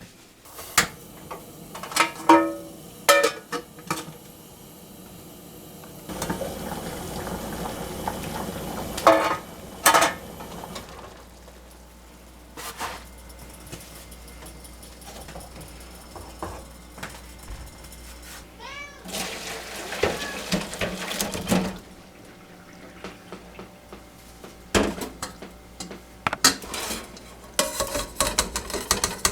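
Domestic cat meowing a few times, with scattered clinks and knocks of kitchen utensils and pots.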